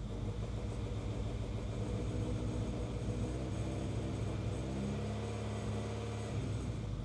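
The 2.0-litre B20 four-cylinder engine of a 2001 Honda CR-V running roughly, misfiring on all four cylinders and running rich, struggling to stay running; its note shifts briefly about five seconds in.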